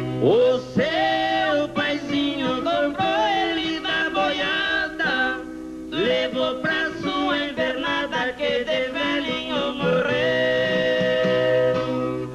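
Música caipira: male voices singing over a viola caipira, swooping up into long held notes. There is a brief break in the singing about five seconds in.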